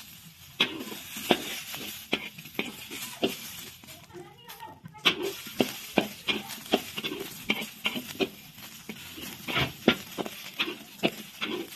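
Metal spatula clacking and scraping against a wok as whole shallots, garlic cloves and chillies are stirred over the heat, with a faint sizzle underneath. The clacks come irregularly, one to three a second, with a short lull about four seconds in.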